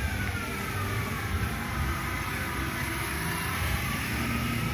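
Motor vehicle engine running with a steady low rumble, and a whine that dips in pitch over the first couple of seconds and climbs back near the end, amid street traffic.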